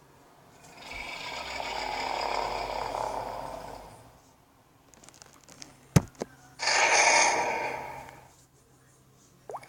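Giant-monster breathing sound effect: two long, noisy, breath-like exhales, with a sharp knock about six seconds in, between them.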